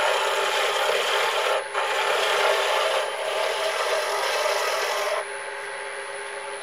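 Wood lathe running while a tool works the spinning walnut-and-zebrano grinder blank: a steady scraping hiss over the lathe's hum. The hiss breaks off briefly twice as the tool lifts and eases off about five seconds in.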